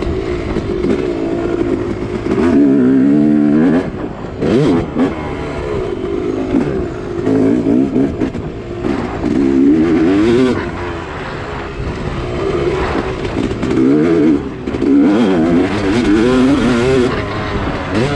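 Yamaha YZ250 two-stroke motocross engine under way, heard close from the rider's helmet. It revs up and falls back over and over as the throttle is opened and shut, with brief drops in level about four, seven and fourteen and a half seconds in.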